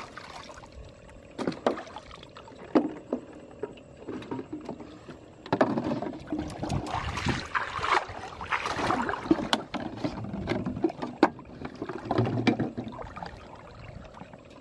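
Muddy water splashing and sloshing as a person wades waist-deep and handles plastic-bottle fish traps, with scattered sharp knocks. The splashing is busiest from about halfway in until near the end.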